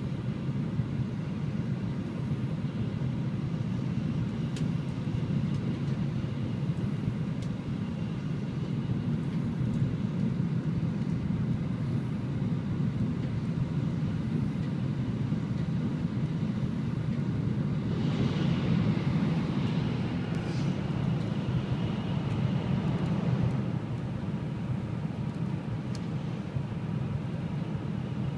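Shinkansen running at about 290 km/h, heard inside the passenger cabin as a steady low rumble. About two-thirds of the way through, a higher hissing rush swells over it for several seconds and then fades back.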